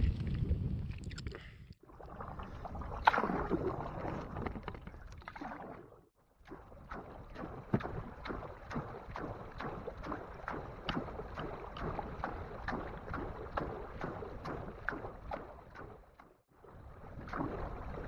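Canoe being paddled: water splashing and dripping around the hull and paddles. In the middle stretch there is a run of regular light knocks, about three a second. The sound is broken by a few brief silences.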